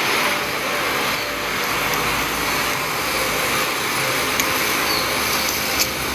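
Steady rushing noise, with a few light clicks near the end.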